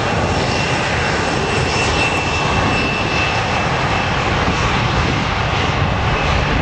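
Airbus A320-family airliner on its take-off roll, its twin turbofan engines at take-off power: a loud, steady jet rush with a thin high whine over it.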